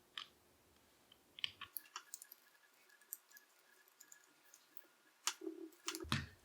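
Scattered light clicks and taps of a small 5/64 Allen wrench turning a screw into the cheek rest of a shotgun stock, a few close together about a second and a half in and more near the end.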